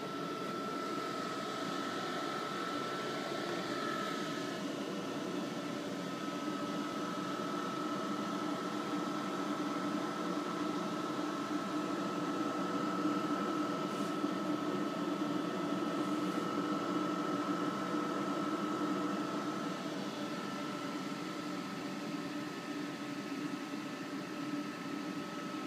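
Cooling fans of an RGB laser projector running, a steady whir with a thin, steady high whine.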